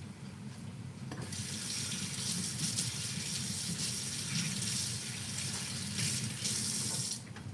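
Kitchen faucet running into the sink, turned on about a second in and shut off shortly before the end.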